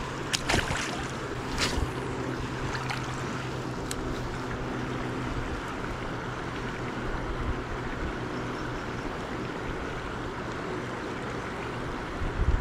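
Steady rush of shallow river water flowing past the wading angler. About half a second in, a small splash as a released sunfish drops back into the water, with another short sharp sound just before two seconds in.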